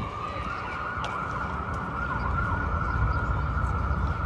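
Emergency-vehicle siren in city traffic: its pitch climbs at the start, then holds one high steady wail over the low rumble of street traffic.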